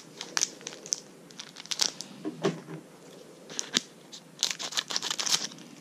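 Foil wrapper of a Magic: The Gathering Amonkhet booster pack crinkling in short, irregular spells as it is handled.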